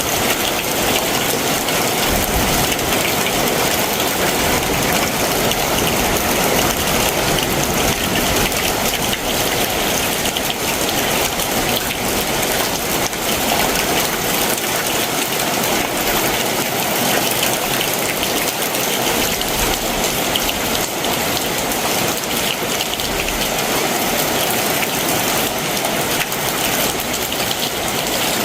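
Heavy summer monsoon downpour, a steady dense hiss of rain falling on surfaces.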